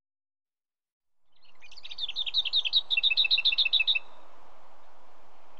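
Lesser whitethroat singing one song: a short warble running into a fast rattle of repeated notes on one pitch, about eight a second, which stops abruptly about four seconds in. A steady background hiss fades in just before the song and carries on after it.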